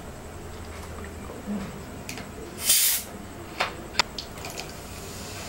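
Plastic soda bottle cap twisted open: a short hiss of escaping fizz lasting about half a second near the middle, followed by a few sharp plastic clicks.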